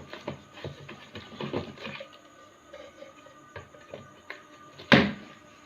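Small plastic computer speaker being handled and fitted back together: irregular light clicks and taps, with one louder sharp click near the end.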